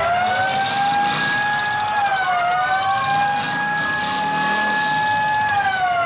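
Arena siren winding up, holding a steady wail with a brief dip about two and a half seconds in, then winding down near the end. It sounds as a stop signal while officials go out to a smoking wreck.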